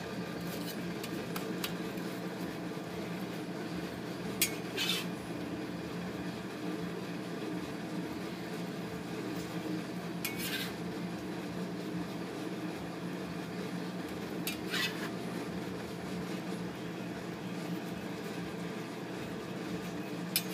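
Metal crepe spatula scraping and tapping against a crepe griddle a few times, with short sharp strokes spaced several seconds apart over a steady kitchen hum.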